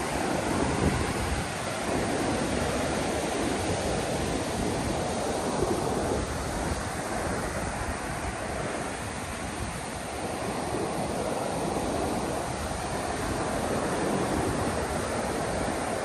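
Ocean surf washing onto a sandy beach, with wind buffeting the microphone in a low, uneven rumble.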